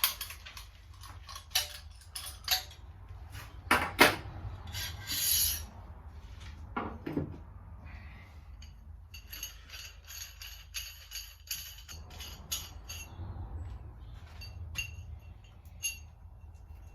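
Metal clinks, knocks and scrapes as a brewing heating element and its fittings are dry-fitted through a freshly cut hole in the side of a metal brew pot. A ringing metallic jingle runs through the middle.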